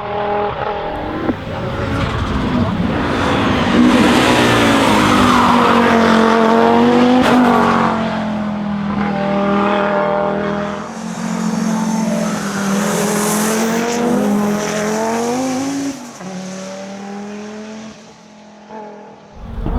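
Turbocharged inline five-cylinder engine of an Audi quattro hill-climb race car at full throttle, its pitch climbing and dropping again and again through gear changes. It is loudest about four to eight seconds in and fades away near the end.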